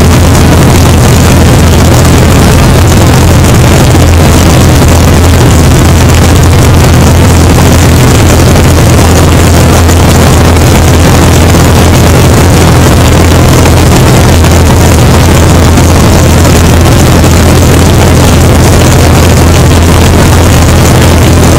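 1981 Great Lakes biplane's piston engine and propeller running steadily in level cruise flight, with heavy wind rush over the wing-mounted microphone. Loud and unchanging.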